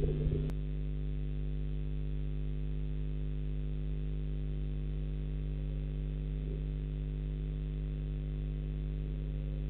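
Steady electrical hum made of several fixed low tones, the audio of a nest-box webcam with no bird calling. A short rougher noise ends abruptly about half a second in.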